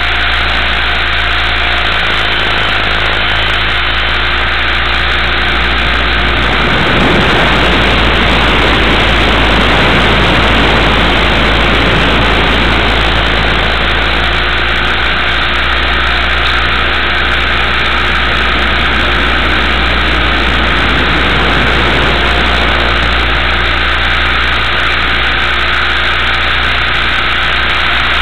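Electric motor and rotor of a Multiplex FunCopter RC helicopter running steadily in flight, picked up close by its onboard camera's microphone. It grows louder and rougher for a few seconds about seven seconds in.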